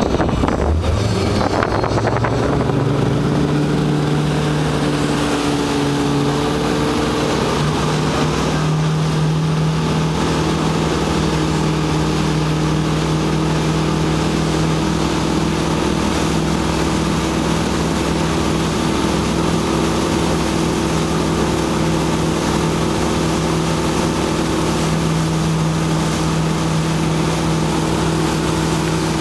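Motorboat engine pulling a wakeboarder up, rising in pitch over the first few seconds as it accelerates, then running steadily at towing speed, with rushing water and some wind on the microphone.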